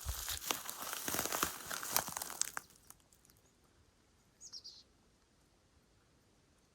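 Crinkling, rustling noise full of small crackles that stops about two and a half seconds in. Near the middle comes one short, high chirp falling in pitch.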